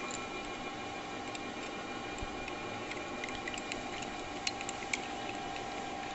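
Metal-turning lathe running with its three-jaw chuck spinning: a steady machine hum with a few light ticks about three to five seconds in.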